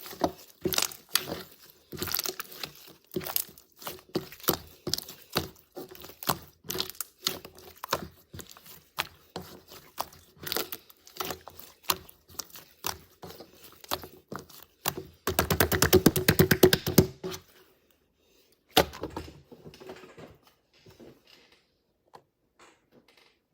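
Slime being squeezed, pressed and poked by hand, making a steady stream of sticky clicks and small air-bubble pops. About fifteen seconds in comes a fast, louder run of pops lasting about two seconds, after which the clicking turns sparse and faint.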